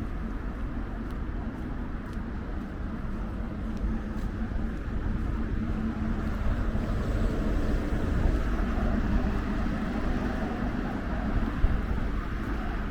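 Outdoor city street noise: a motor vehicle's engine hum grows louder through the middle and then eases off, over a steady low rumble of wind on the microphone.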